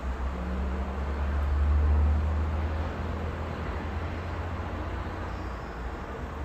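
Severe wind gusting against the microphone as a deep rumble that swells about two seconds in, over the steady hiss of road traffic.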